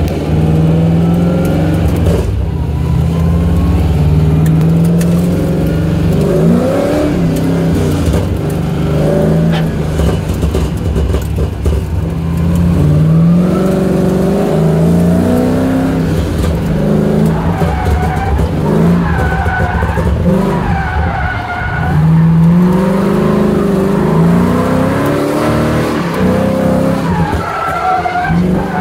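Car engine heard from inside the cabin, revving up and dropping back over and over during a drift run, with tyres squealing in arching bursts in the second half.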